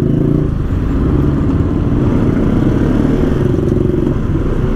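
Motorcycle engine running at low, fairly steady revs as the bike is ridden slowly through traffic, with a few small changes in pitch, heard from the rider's position over road noise.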